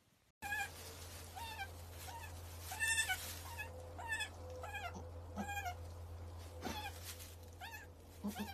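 Newborn goat kids bleating: short, high, thin cries in quick succession, one every half second or so, each rising and falling in pitch. They start about half a second in, over a steady low hum.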